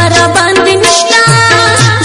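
Dance music with a steady beat and a repeating low drum note.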